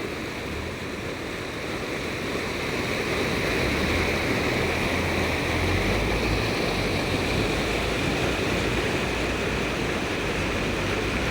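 Rain-swollen floodwater rushing steadily in a strong flow, with a low rumble underneath; it grows a little louder a few seconds in.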